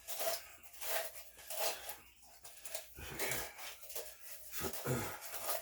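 Wet mortar being scooped and scraped into a caulking-gun tube: a run of short scraping strokes, about two a second.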